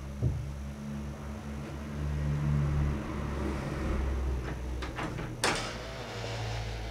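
Wooden bedroom door and its handle being handled: a short knock just after the start, then a few small clicks and a sharper, louder knock about five seconds in, over a steady low hum.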